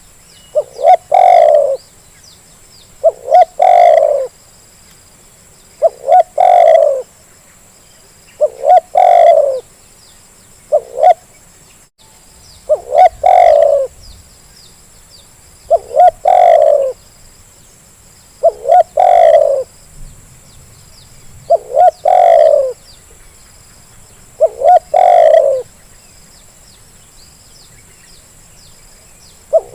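Spotted dove (terkukur) cooing over and over, about every three seconds. Each call is two short notes followed by a longer note. Faint high chirps from small birds run underneath.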